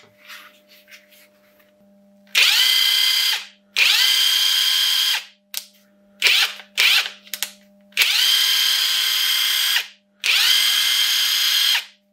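Cordless impact wrench free-running with no socket or load, powered by a DIY 18650 battery pack. There are four trigger pulls of one to two seconds each, the motor whine rising as it spins up and then holding steady, with a few short blips between the second and third.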